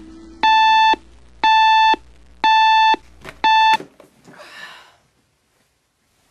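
RCA digital alarm clock beeping, a high electronic tone about half a second long repeating about once a second. The last beep is cut short with a couple of sharp clicks as a hand slaps the clock off, and it goes quiet.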